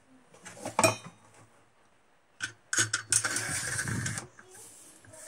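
Remington 870 pump-shotgun parts being put back together: a sharp metallic click about a second in, two lighter clicks, then about a second of metal scraping as the action bars and bolt slide into the receiver.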